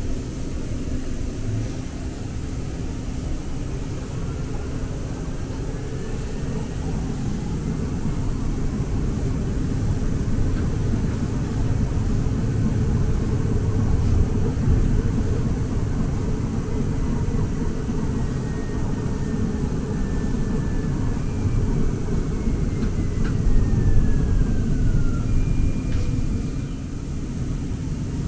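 Interior rumble of a Muni Metro light-rail train running along the street: a steady low rumble that swells a little midway and again near the end, with faint thin whining tones gliding down in pitch in the later part.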